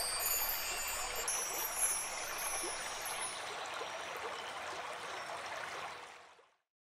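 Logo-intro sound effect: a steady rushing noise with high glittering chime tones over it for the first three seconds or so. It fades out about six seconds in.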